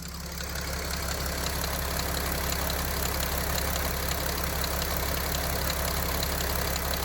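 Mercedes OM642 V6 diesel idling with a rustle from the fuel pump and a light, regular knock from the high-pressure fuel pump drive. The mechanic ties the knock to the speed of the drive chain, not to crankshaft or pump speed, and links it to low fuel feed pressure.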